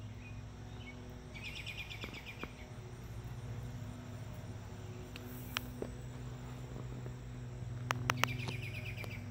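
Outdoor evening ambience with an insect trilling: two short runs of rapid, evenly spaced chirps, about a second each, one near the start and one near the end, over a steady low hum, with a few sharp clicks shortly before the second run.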